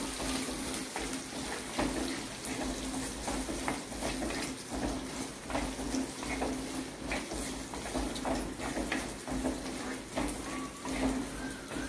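Chopped onions sizzling in hot oil in a clay cooking pot while a wooden spatula stirs them, with frequent short scrapes and light knocks of the spatula against the pot.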